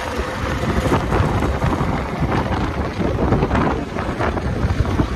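Wind buffeting and rushing over the microphone from riding on the back of a moving motorbike, a loud, uneven low rumble with no speech.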